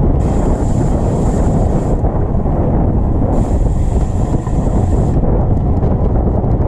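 Steady, loud wind rumble buffeting the microphone. A high hiss comes in twice, each time for about two seconds.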